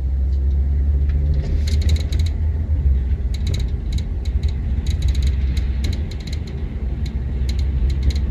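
Volvo S80 cabin noise over an uneven road: a steady low tyre-and-road rumble with many sharp, irregular clicks and crackles from the rear of the car, coming in clusters. The clicking comes from two overlapping, spot-welded metal body panels at the rear, behind the trunk lining, snapping against each other over bumps.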